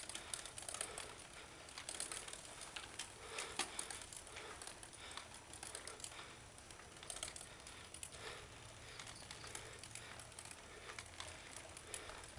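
Mountain bike being ridden on a paved road: irregular light clicking and rattling from the bike's parts.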